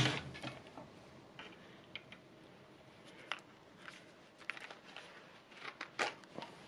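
A jigsaw being shifted on a wooden workbench right at the start, then scattered light clicks and taps as a plastic jigsaw-blade case is handled.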